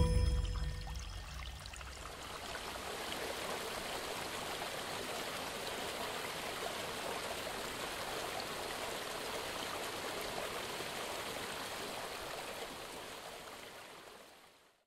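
A mountain river rushing steadily over the rocks of a gorge, after the last of the flute music dies away in the first second or two. The water sound fades out near the end.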